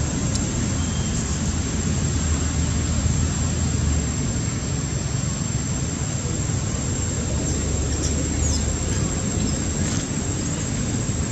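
Steady low rumbling background noise with no clear breaks, and a thin, faint high tone held steady above it.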